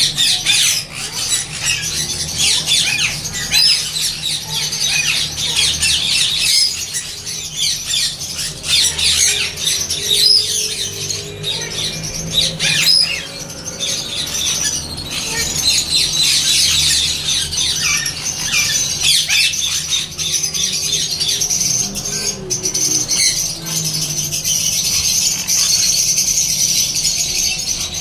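Parrots chattering and squawking: a dense, unbroken stream of short high calls, many falling quickly in pitch.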